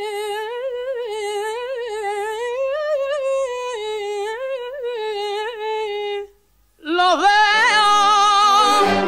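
A male singer's high tenor voice holds one long note with a wide vibrato, unaccompanied, for about six seconds. It breaks off briefly, then comes back in louder, with the band's brass entering underneath near the end.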